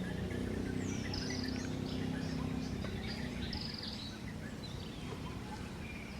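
Outdoor ambience with birds chirping: short high trills, the clearest about a second in and again about three and a half seconds in, with scattered falling chirps, over a steady low background rumble.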